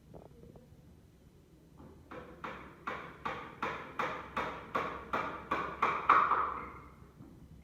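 Hammering on wood: a steady run of about fourteen sharp strikes, roughly three a second, growing louder, with the last and loudest blow ringing briefly.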